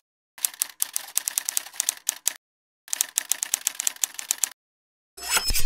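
Typewriter key clicks: rapid runs of sharp strikes, several a second, in two bursts with a short silent pause between. Near the end a broad noise swells up.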